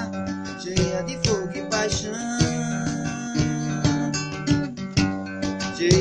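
Instrumental music: acoustic guitar playing over a steady percussive beat.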